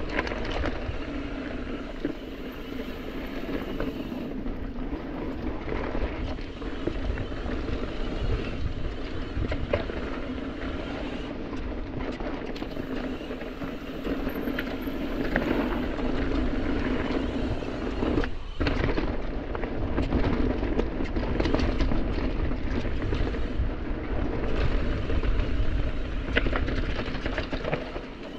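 Enduro mountain bike ridden fast down a dirt singletrack: tyres rolling over packed dirt with a steady rumble, and the bike rattling and knocking over bumps and roots many times.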